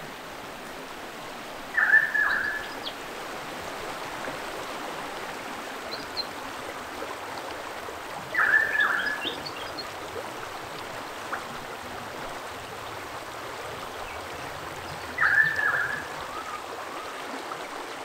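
River water rushing steadily over rocks. A bird gives a short call three times, roughly every six to seven seconds, and each call is louder than the water.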